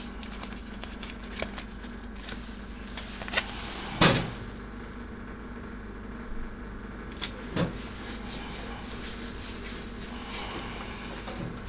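An adhesive paper warning label being handled and pressed onto the steel door of a Square D breaker panel. There is a sharp knock on the metal about four seconds in, another a few seconds later, then a run of quick rustling strokes as the label is rubbed down flat.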